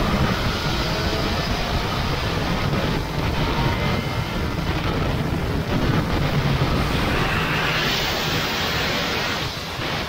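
Yamaha FZ1N's inline-four engine running steadily at road speed, heard from the bike, mixed with rushing road and wind noise that grows hissier near the end.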